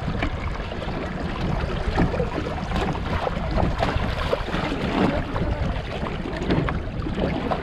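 Wind buffeting the microphone over water lapping against a small boat, with a few brief splashes or knocks scattered through.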